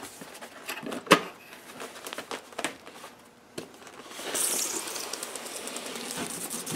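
Cardboard box flaps rustling, with a sharp tap about a second in. From about four seconds, a steady scraping rustle as the foam-plastic carrying case slides up out of the cardboard box.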